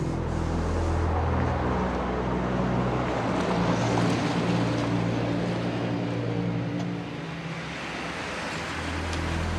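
A car driving fast, its engine running hard with road noise that swells through the middle, under a low sustained music drone.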